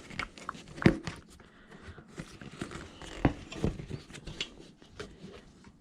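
Tire spoon and rubber tire bead being worked against a bicycle wheel rim: scattered clicks, knocks and scuffs. The two sharpest knocks come about a second in and just past the halfway point.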